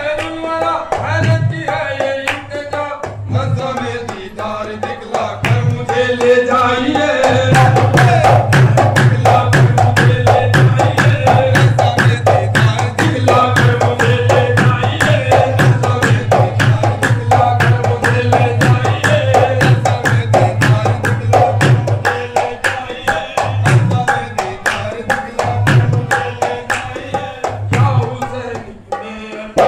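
Sufi devotional song (kalam) performed live: voices singing over drumming that keeps a fast, steady beat.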